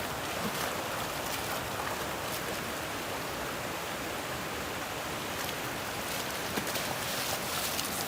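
Waterfall: a steady rush of falling water, with a few faint ticks in the last few seconds.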